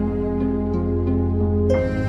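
Soft instrumental background music of held notes, with a new chord coming in near the end.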